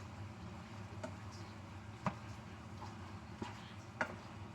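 A few light, sharp clicks of a cooking utensil against a pan, spaced a second or more apart, over a steady low hum.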